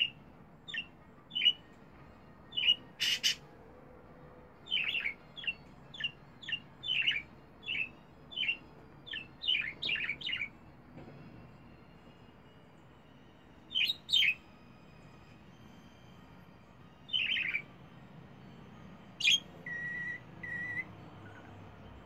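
Budgerigar chirping: a quick run of short, sharp chirps, each sliding down in pitch, for about ten seconds, then a few scattered chirps and two short, even-pitched peeps near the end. A single sharp click about three seconds in.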